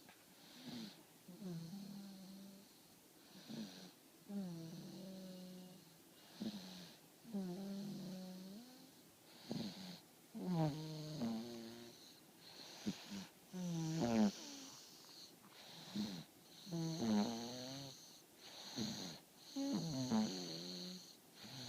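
A man snoring, a pitched, buzzing snore on each breath about every one to two seconds, some of them bending up and down in pitch.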